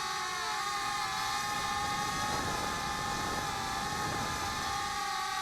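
Small quadcopter's electric motors and propellers whining steadily in flight, the pitch wavering slightly with throttle changes about half a second in.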